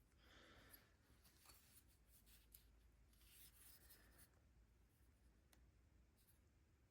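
Near silence, with faint light scrapes and small clicks of a jet being handled and set into a Mikuni carburetor body.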